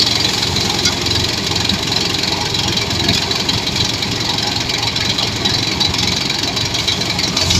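Engine-driven rice threshing machine running steadily on a test run, giving a loud, even mechanical din.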